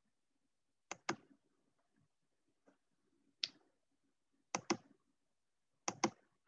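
Computer mouse button clicking: sharp clicks in quick pairs about a second in and twice near the end, with a single click in between.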